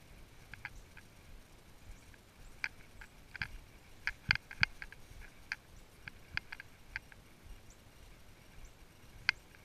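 A horse walking on a dirt trail: irregular sharp clicks and light clinks, from its bridle hardware and hooves, with a couple of heavier thuds about four and a half seconds in.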